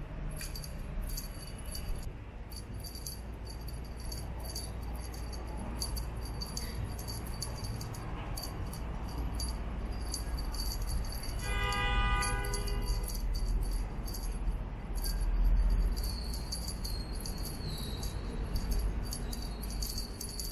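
Small bell on a wand cat toy jingling in irregular shakes as the toy is flicked about. A short pitched call sounds about halfway through.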